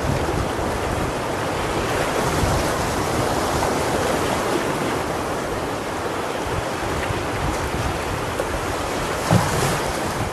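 Steady rush of whitewater on a river rapid, with wind buffeting the microphone. A brief low thump about nine seconds in.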